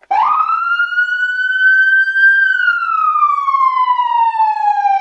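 Whelen electronic siren sounding a wail tone. It starts abruptly, climbs in pitch for about two seconds, slides slowly back down for nearly three, and starts to climb again at the very end.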